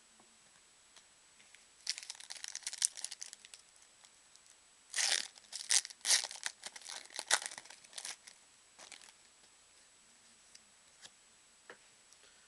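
Foil wrapper of a trading-card pack being torn open and crinkled by hand. There is a short bout of tearing about two seconds in and a louder, longer bout about five seconds in, then a few faint crinkles.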